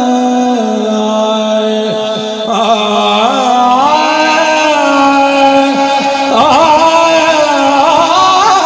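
A male naat reciter singing a Punjabi kalam through a microphone and PA system, drawing out long wavering notes, with new phrases starting about two and a half and six seconds in.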